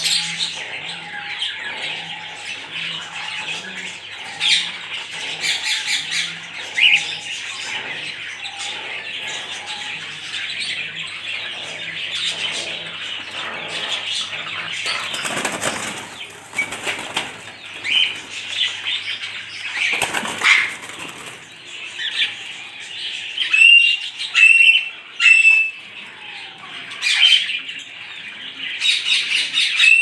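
African grey parrot flapping its wings for much of the time, then giving several short high whistles and one falling whistle in the last few seconds.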